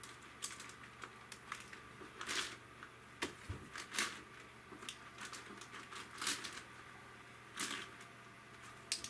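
Plastic clicks and clacks of a Yuxin Huanglong 17x17 magnetic cube being turned and handled, coming irregularly, with a few louder clacks.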